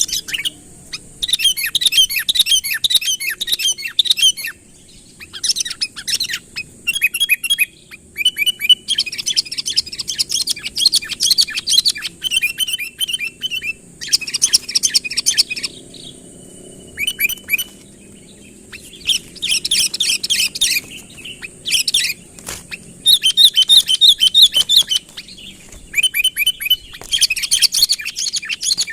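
Sooty-headed bulbul (kutilang) singing vigorously in repeated bursts of quick, bubbling chirps, each a second or two long, with short pauses between. This is the male's territorial song that draws rival birds in.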